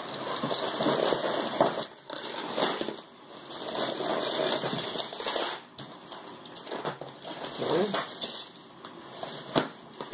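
Rustling with scattered sharp clicks as a handful of thrifted costume jewelry is sorted through by hand.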